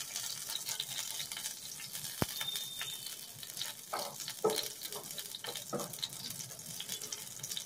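Garlic cloves frying in hot oil in a pan: a steady sizzle with scattered small crackles and pops.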